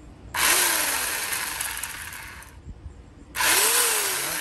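Sun Joe SWJ807E 8-amp electric chainsaw run twice in short trigger pulls, about three seconds apart. Each time the motor and chain whir up suddenly, then wind down in pitch and level as the trigger is let go.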